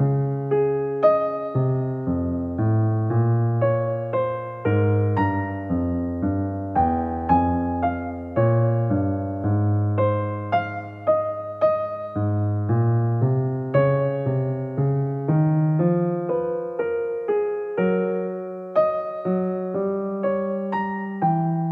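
Background piano music: a slow melody of struck notes that fade, over lower chords.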